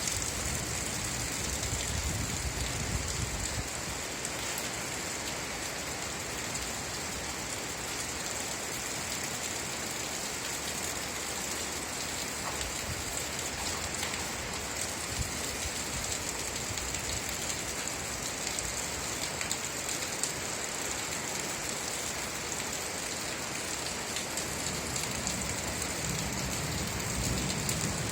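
Steady rain falling, an even hiss with a low rumble underneath in the first few seconds and again near the end.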